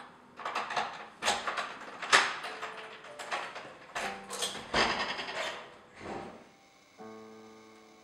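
A door being unlocked with a key and opened: a rapid run of clicks, rattles and knocks from the key, lock and latch that lasts about six seconds, loudest about two seconds in. A sustained musical chord follows near the end.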